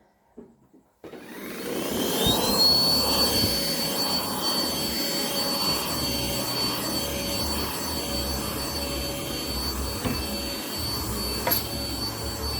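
Vacuum cleaner switched on about a second in, its motor spinning up with a rising whine that settles into a steady high-pitched whine over a continuous rushing hum. There is a brief click near the end.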